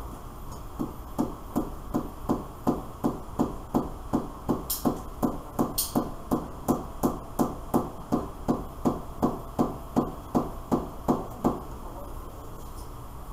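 A riflescope in an iron test stand being struck over and over with a hand-held hammer, about three even blows a second for some ten seconds, two of them sharper and brighter near the middle. It is a shock-resistance test: impacts applied to see whether the scope's reticle shifts.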